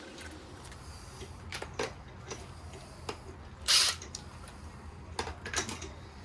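Small metal clicks and clinks of wheel nuts being fitted by hand to a caravan wheel, with one brief, louder rasp of noise a little past halfway.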